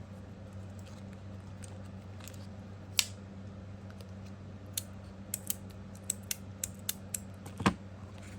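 Sharp metallic clicks from a magnetic fidget slider's plates being handled for cleaning: one about three seconds in, then about a dozen irregular clicks over the next few seconds, over a steady low hum.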